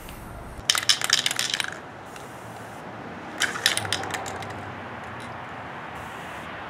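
Aerosol spray-paint can being shaken, its mixing ball rattling in two short bouts: one about a second in and another near the middle.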